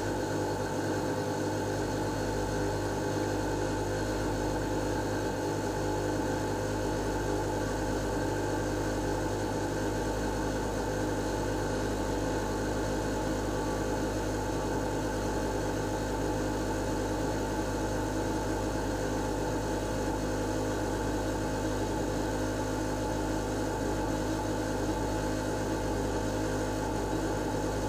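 Lennox Pulse21 gas furnace running steadily through its start-up delay, a constant mechanical hum with a low drone, before the main circulating blower motor has come on.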